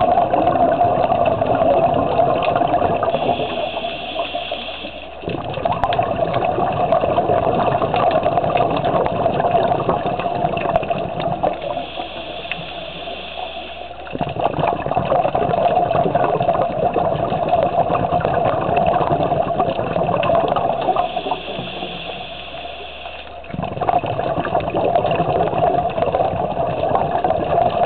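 Scuba diver breathing through a regulator underwater: exhaled bubbles gurgle for about seven seconds at a time, and each breath in is a short hiss of about two seconds, three breaths in all.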